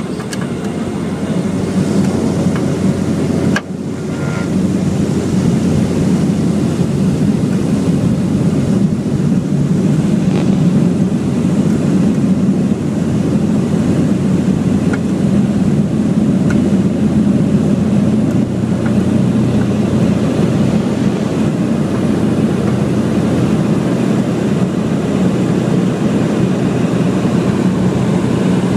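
Small propeller plane's engine and propeller at takeoff power, heard from inside the cabin: a loud, steady drone that builds over the first couple of seconds as the plane rolls down the runway and lifts off. The drone dips briefly a few seconds in.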